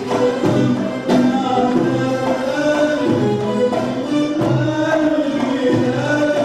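Live Arabic band music: a melody line gliding and sustained over hand-drum strokes.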